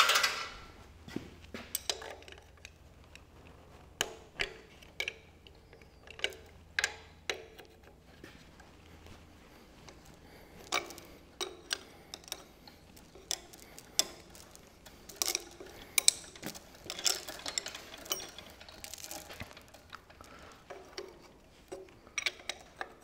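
Scattered metal clicks and clinks of a hand wrench and loose rocker-gear parts on an old tractor engine's cylinder head as the rocker-shaft nuts are worked by hand, with a sharper knock right at the start.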